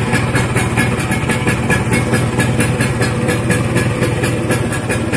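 Vespa Super's two-stroke single-cylinder engine idling steadily on the stand, with a fast, even beat.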